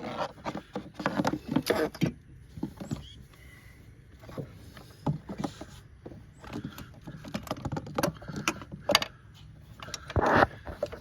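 Irregular clicks, knocks and rattles of hands working an A/C recharge hose and its quick coupler onto the low-pressure port under the hood, with a louder scraping burst near the end.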